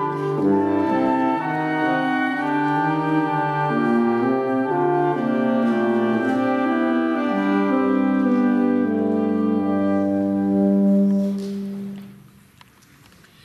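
Small live woodwind ensemble of flute, clarinet and saxophones playing a slow passage of sustained chords, ending on a long held low chord about eleven seconds in.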